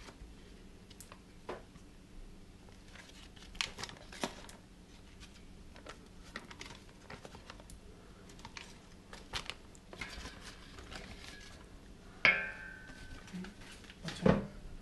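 Foil butter wrappers crinkling and rustling as butter is pressed out of them into a stainless steel mixing bowl, with scattered light clicks. About twelve seconds in comes a sharp knock with a short ringing tone, and a louder thump follows near the end.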